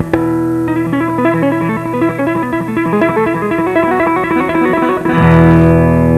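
Background music: a plucked string instrument playing a quick run of notes, then a sustained chord with a deep bass note about five seconds in.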